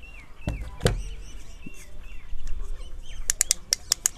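Plastic phone clamp of a selfie stick tripod being handled: two knocks about half a second in, then a quick run of sharp clicks from about three seconds in as its swivel joint is turned. Birds chirp faintly in the background.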